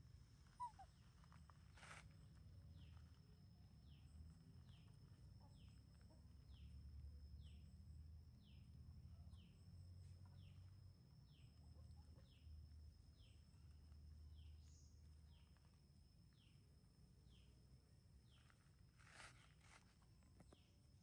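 Near silence: faint outdoor ambience, with a short falling chirp repeating about once a second over a steady high thin tone and a low rumble. There is a single click about two seconds in and a brief rustle near the end.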